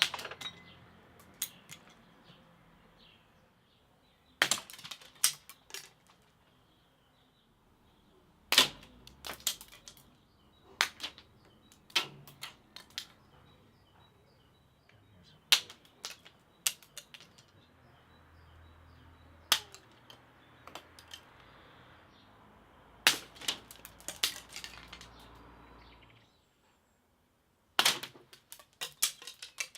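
Wisteria seed pods bursting open in the sun's heat: sharp, loud cracks and snaps at irregular moments, some single and some in quick clusters of several pops. A faint steady hiss lies underneath and drops away a few seconds before the end.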